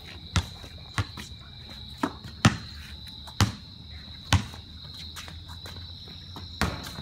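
A basketball bouncing on a concrete driveway, seven or so sharp bounces at uneven intervals, over the steady high chirring of crickets.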